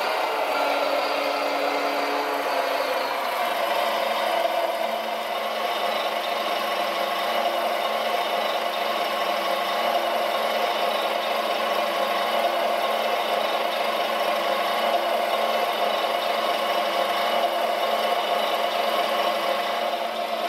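Radio-controlled Volvo L250G wheel loader model running with a steady mechanical whir from its motors, its pitch shifting slightly about three seconds in.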